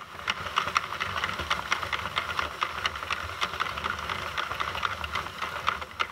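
Sentro 48-needle hand-cranked circular knitting machine turning with no yarn in the feeder, its plastic needles clicking past the carriage several times a second over a low rumble. The stitches drop off the needles as it turns, freeing the knitted tube from the machine.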